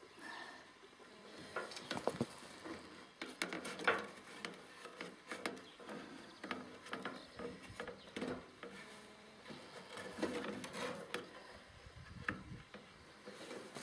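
Irregular clicks, taps and scraping of hand work, as binding wire is bent and twisted.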